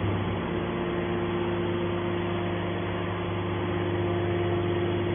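Hydraulic scrap metal baler's power unit running with a steady hum, a constant low drone and a clearer steady tone above it.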